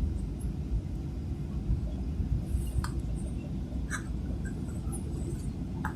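Steady low cabin rumble inside a Boeing 737-800 taxiing after landing, with a few faint clicks and rattles.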